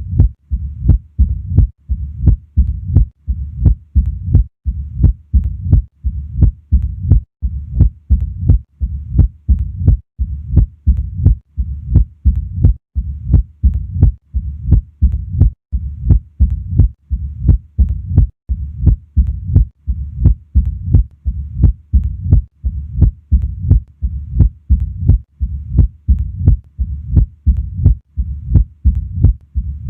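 Mitral stenosis heard through a stethoscope at the cardiac apex: a regular heartbeat, a little over one beat a second, with a sharp, clicking heart sound at each beat and a low-pitched rumbling murmur that fills most of each cycle.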